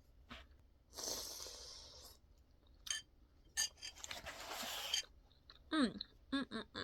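Close-miked eating sounds: two stretches of crunching noise about a second long and a few sharp clinks of a utensil or dish, with short voice sounds near the end.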